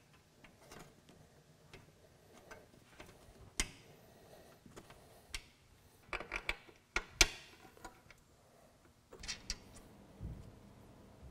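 Scattered light clicks and knocks of metal hardware as carriage bolts are fitted through a rubber mud flap and an aluminum mounting frame and nuts are put on by hand. A quick cluster of clicks comes about six to seven seconds in, the sharpest just after seven seconds, and a few more near the end.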